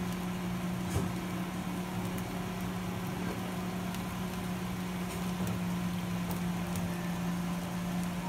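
Steady motor hum over a faint hiss, with a single small click about a second in.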